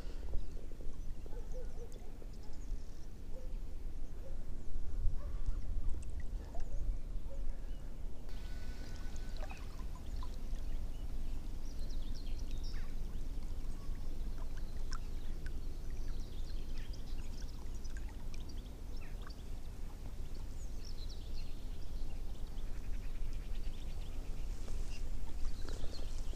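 Water lapping and trickling against the side of a small boat, over a steady low rumble, with scattered faint clicks.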